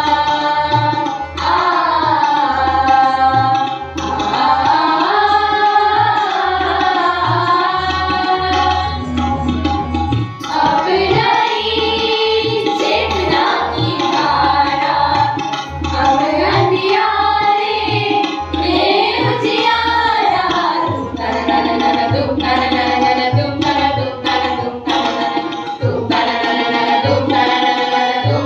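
A group of young voices singing a song together, accompanied by tabla drums keeping a steady beat and a harmonium.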